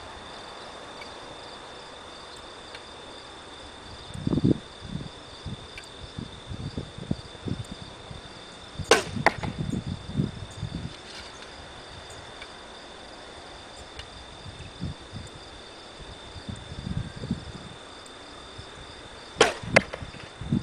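Two shots from a 62-inch, 45 lb Ben Pearson Razorback recurve bow, about ten seconds apart. Each is a sharp snap of the string on release, with a second crack a split second later. Insects keep up a steady high drone throughout.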